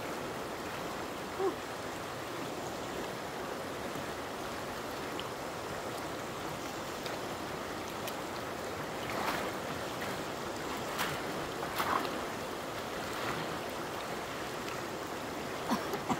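Stream water rushing steadily in a fast current. A few brief sharp sounds cut through it in the second half.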